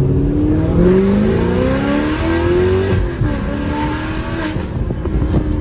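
Sixth-generation Camaro's V8 accelerating hard with a manual gearbox, heard inside the cabin: the engine note climbs for about three seconds, drops at an upshift, then climbs again.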